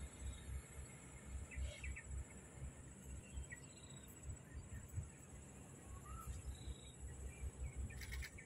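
Outdoor ambience: a steady high insect drone with a few faint, scattered bird chirps, over a low fluttering rumble of wind on the microphone.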